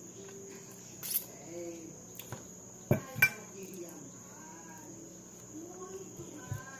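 Crickets trilling steadily in the background, with a few sharp metallic clinks about a second in and around three seconds in as a small steel bowl is handled and set down on the table.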